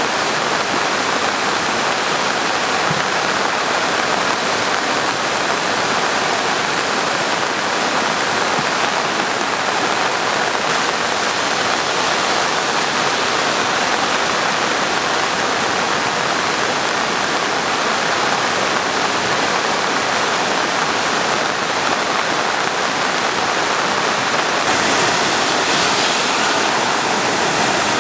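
Steady, loud rush of a small river in flood, its water running high after heavy typhoon rain.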